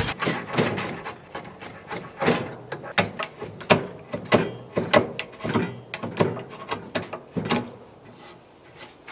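Hand tools working a timber beam to cut a lap joint: a run of rasping saw strokes and sharp wooden knocks from a chisel, roughly one or two a second, that stops about eight seconds in.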